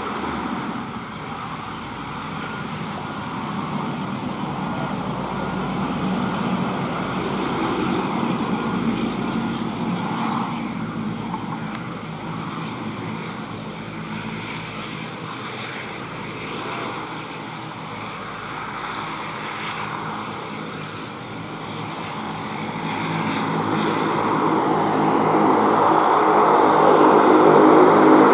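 Twin turboprop engines and propellers of a Bombardier Dash 8 Q300 airliner running at low power while it rolls and taxis. A steady propeller hum gets louder over the last few seconds as the aircraft comes nearer.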